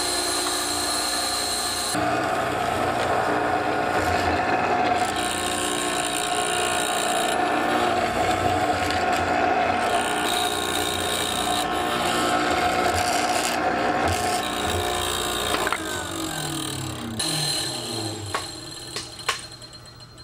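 Hollow-chisel mortiser running, its square chisel plunging into a wooden table leg to cut mortises. About three-quarters of the way through, the motor is switched off and winds down with a falling hum. A couple of sharp knocks follow.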